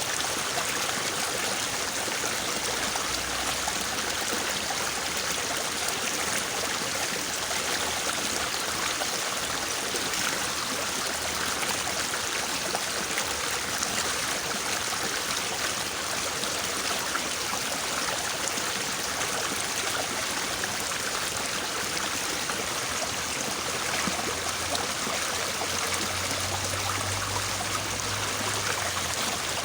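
Small, fairly swift river babbling steadily: a continuous rush of running water with no breaks.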